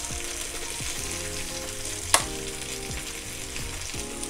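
Chicken breasts sizzling on a hot ribbed grill plate while they are turned over with metal tongs, with one sharp clack of the tongs about halfway through.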